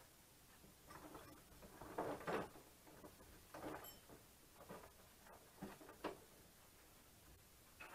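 A few faint, irregular knocks and scrapes of motorcycle front-end parts being handled and set in place during a loose fit-up, the loudest about two seconds in.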